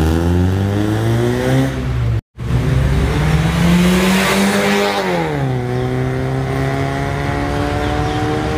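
Toyota Vios NCP93's four-cylinder engine accelerating through a new full stainless steel exhaust system. The exhaust note climbs steadily in pitch, cuts out briefly about two seconds in, climbs again, drops about five seconds in, and then holds at a steady, slowly rising pitch.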